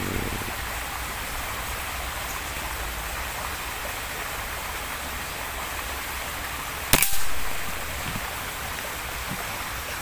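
A single air rifle shot about seven seconds in: one sharp report with a short fading tail, over a steady outdoor hiss.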